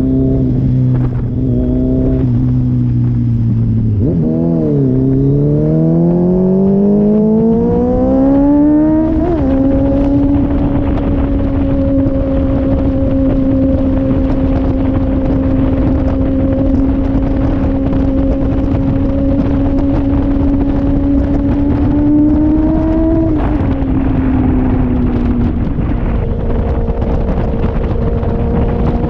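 Inline-four sportbike engine heard from on the bike as it pulls away, its revs rising steadily for about five seconds before dropping sharply at an upshift. It then holds a steady cruise with wind rushing over the microphone. Later the pitch drops again and settles lower.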